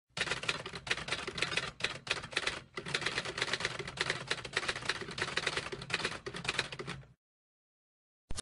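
Typewriter sound effect: rapid key clacks with brief pauses, stopping about seven seconds in. Music starts just before the end.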